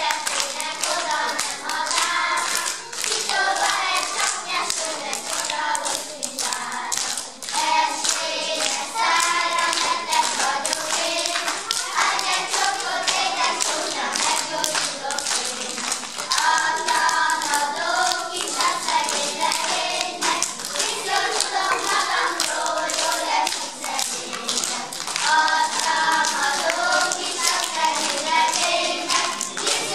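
Group of young children singing a folk song together, with many sharp hand claps over the singing.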